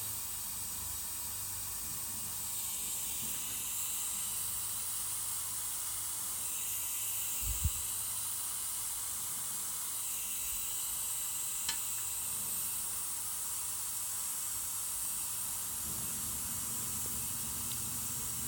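Steady high-pitched hiss, with a low thump about halfway through and a faint click a few seconds later.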